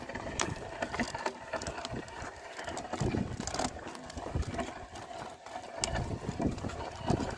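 Team of oxen pulling a plough: irregular hoof thuds and knocks on the soil.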